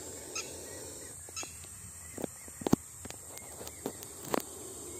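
Quiet outdoor ambience with a few short, faint bird calls and scattered soft clicks.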